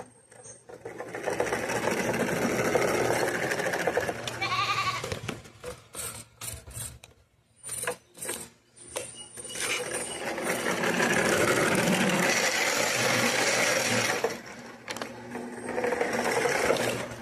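Small electric motor and gears of a homemade RC car running in spurts: several seconds of steady whirring, then a stretch of short stop-start bursts and clicks, then longer runs again.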